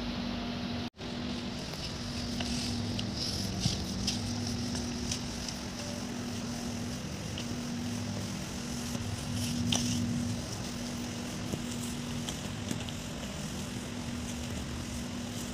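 Flat floor-sweeper mop with a dry cloth pushed back and forth over a tile floor, its plastic head giving scattered light clicks and knocks against the tiles, over a steady low hum. The sound cuts out briefly about a second in.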